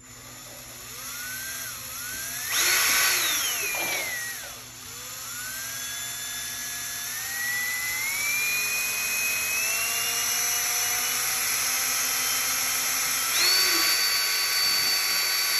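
Cordless drill whining as it spins a fidget spinner held in its chuck. The pitch surges up about two and a half seconds in and slides back down, then climbs again in steps. It jumps to a steady high whine shortly before it cuts off suddenly at the end.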